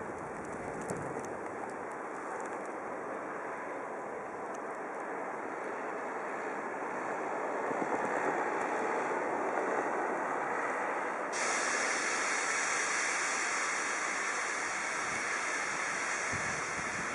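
Road traffic at a snow-covered crossroads: a steady wash of vehicle tyres on the snowy road. It swells as a vehicle passes, peaking about eight to ten seconds in. A brighter hiss sets in suddenly about eleven seconds in.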